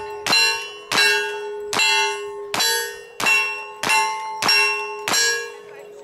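A rapid string of gunshots, each ringing a steel target: eight sharp cracks about three-quarters of a second apart, each followed by a bell-like ring that dies away.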